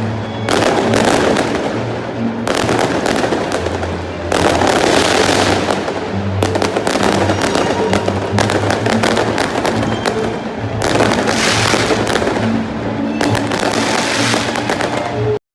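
Fireworks display: dense crackling and popping bursts in rapid succession, swelling in waves, with music playing along underneath. The sound cuts off abruptly near the end.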